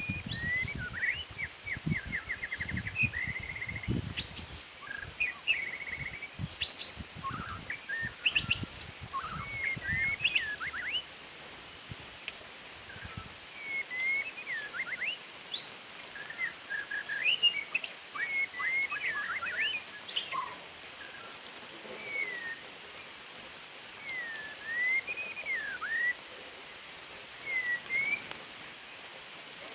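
White-rumped shama singing: a string of varied whistled phrases that swoop up and down, with short pauses between them. Dull low thumps come and go during the first half, and a faint steady high tone runs underneath.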